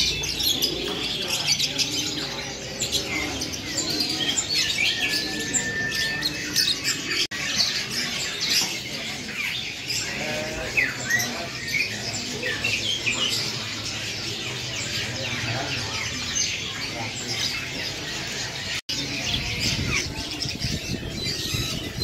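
Many caged birds chirping, tweeting and squawking at once: a dense, overlapping chorus of short high calls, with a low murmur of voices underneath.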